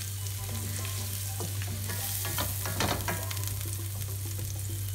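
Butter and chopped garlic sizzling in a stainless steel skillet, with a wooden spatula scraping and knocking against the pan a few times between about one and three seconds in. A steady low hum runs underneath.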